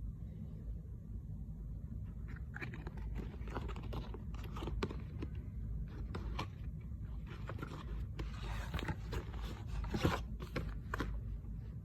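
Makeup packaging being handled and opened by hand: irregular crinkling, scraping and tearing starting a couple of seconds in and growing busier toward the end, over a steady low hum.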